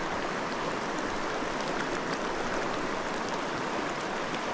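Creek water running steadily over rocks, a constant even rush.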